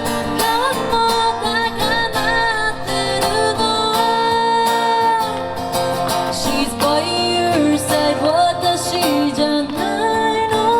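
A woman singing a pop ballad live with acoustic guitar accompaniment, her voice holding and bending long notes over the strummed chords.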